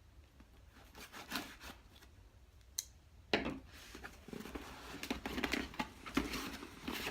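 Cardboard box being opened by hand: faint scrapes and a sharp click, then from about three seconds in a denser run of cardboard rubbing and crinkling as the flaps and contents are handled.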